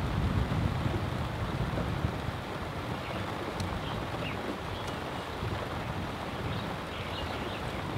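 Steady rain and wind with a low rumble underneath, and a few faint high chirps in the second half.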